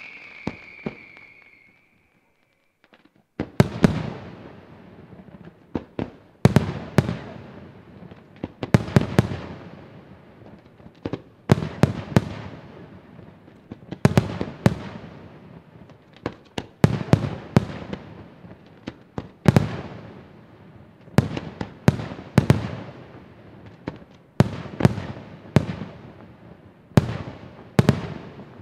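Aerial firework shells bursting one after another, loud sharp booms in quick pairs and triples every couple of seconds, each trailing off in a rolling rumble. It opens with the tail of a falling whistle, then a short hush before the booms begin about three and a half seconds in.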